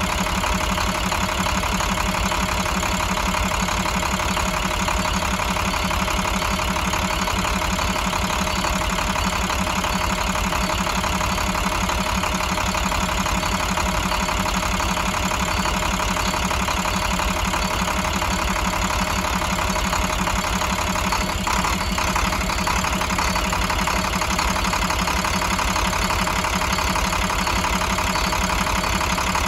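2009 International MaxxForce DT inline-six diesel engine idling steadily.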